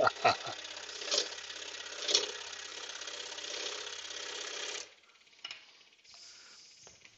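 Axminster AP535SS scroll saw running and cutting a wooden blank: a steady motor hum with the fast chatter of the reciprocating blade, with a few brief louder sounds over it in the first two seconds. It stops abruptly about five seconds in.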